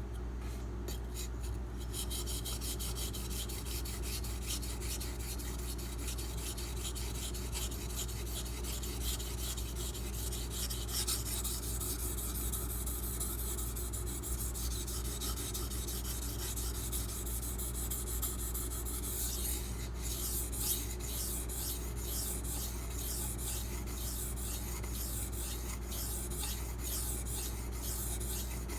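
Steel knife edge being stroked back and forth on a sharpening stone: a rapid, continuous scraping rasp of blade on abrasive, over a steady low hum.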